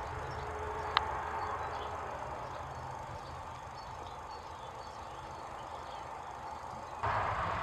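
Steady outdoor ambience with faint, scattered high chirps, broken by one sharp click about a second in. A louder rush of noise comes in near the end.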